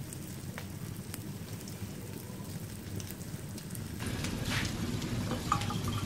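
Egg and minced-pork omelette frying in oil in a wok: a steady sizzle with scattered small crackles over a low rumble, growing louder about four seconds in. A short clatter of kitchenware a little after five seconds.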